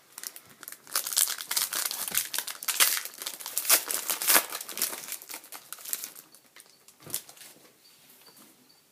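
Wrapper of a 2013-14 Panini Select hockey card pack crinkling and tearing as it is opened by hand: a dense run of crackles lasting about five seconds, then a single tap about seven seconds in.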